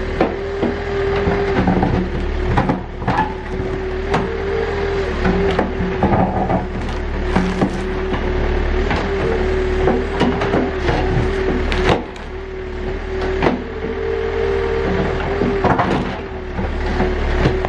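Backhoe's diesel engine running under load with a steady whine, while the bucket digs out a tree stump with many sharp clanks, knocks and cracks.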